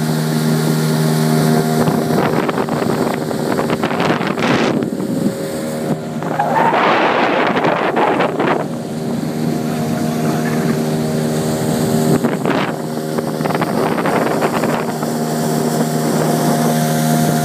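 Outboard motor of a small open boat running steadily at speed, a constant droning tone. Wind buffets the microphone in several gusts over it.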